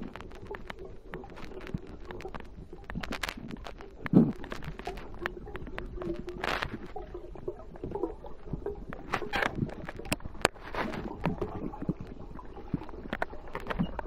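Muffled underwater sound from a camera housing among scuba divers: scattered clicks, knocks and gurgling from the divers' bubbles, with one sharp knock about four seconds in.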